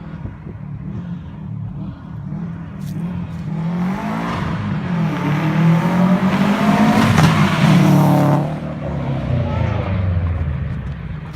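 Subaru WRX hatch's turbocharged flat-four with a loud aftermarket exhaust, accelerating hard as it drives past: the note rises in pitch and grows very loud, then drops and fades as the car pulls away.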